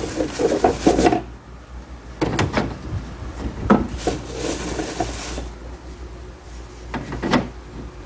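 Eggs being set into a clear plastic refrigerator-door egg tray: clicks and rubbing of eggshell against plastic in four separate bouts, one egg at a time.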